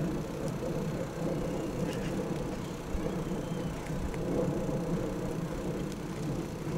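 Steady low rumble of a bicycle ride picked up by an action camera on board, with a few faint ticks along the way.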